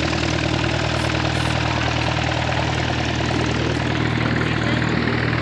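Socata Rallye Commodore MS893A's four-cylinder Lycoming engine and propeller running steadily at low ground power, with an even, unchanging drone.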